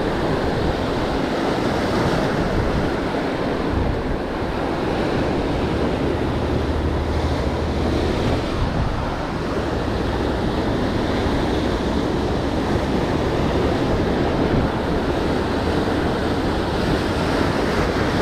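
Waves breaking and washing up the shore in a steady rush, with wind buffeting the microphone.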